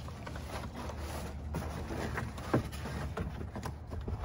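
Rummaging through cardboard, boards and plastic bags in a dumpster: light rustling and knocks, with one sharper knock about two and a half seconds in, over a steady low hum.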